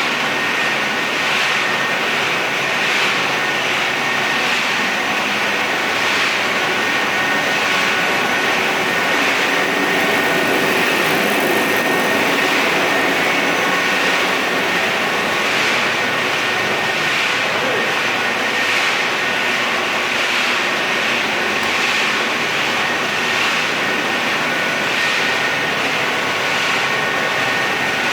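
Dry pet food production machinery running steadily: a loud, even machine noise with a few constant whining tones and a regular pulsing in the hiss.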